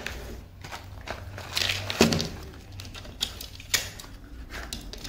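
Cardboard packaging and small accessories being handled: irregular clicks, taps and rustles as a small box is opened and its screws and cables are taken out, with the sharpest knock about two seconds in.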